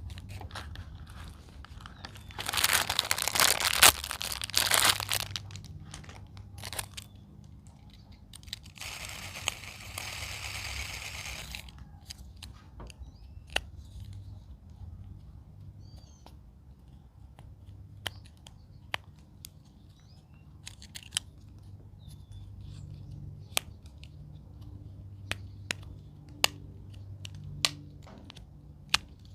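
Plastic packaging crinkling and tearing loudly for a couple of seconds, then a steadier rustling hiss for about three seconds. After that come sparse sharp clicks as small plastic fidget toys are handled.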